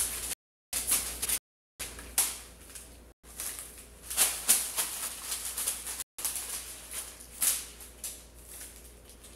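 Paper receipts stuck to a body rustling and crackling irregularly as hands rub and press them. The sound cuts out briefly a few times, near the start and again around three and six seconds in.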